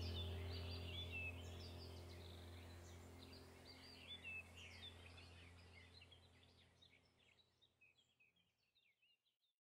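Small birds chirping and twittering over a low steady drone. The whole sound fades out gradually and is gone just before the end.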